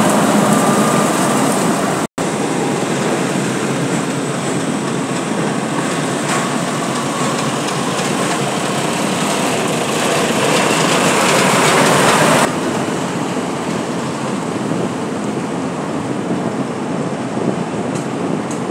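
Heavy dump trucks driving past, with loud engine and tyre noise. The sound drops out for an instant about two seconds in, and about twelve seconds in it becomes quieter and steadier.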